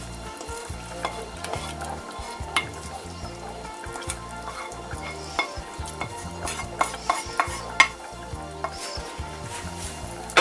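Wooden spoon scraping and tapping against a frying pan as its oil and juices are scraped into a pot of tomato sauce, then stirring in the pot. Irregular knocks and clicks over a soft sizzle.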